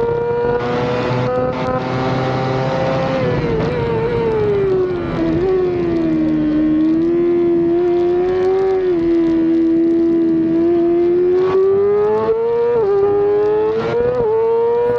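Yamaha YZF-R6 race bike's inline-four engine running at high revs, heard from a camera mounted on the bike. The note holds high, falls about four seconds in and stays lower for several seconds, then climbs again, with brief dips in pitch near the end.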